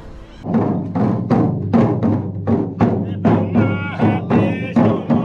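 Background music that comes in about half a second in, with a steady percussive beat of about three beats a second and a wavering melody over it.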